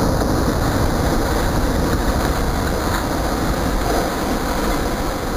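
A tall coal hopper tower toppling and collapsing as it is winched over, heard as a continuous loud rumble with clatter of falling debris.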